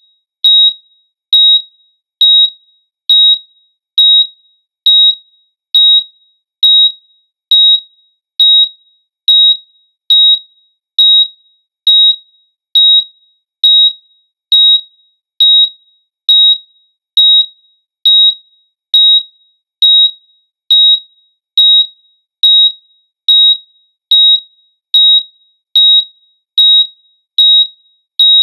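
Hospital heart monitor beeping steadily, one short high electronic beep a little under once a second, the regular pulse tone of a steady heartbeat.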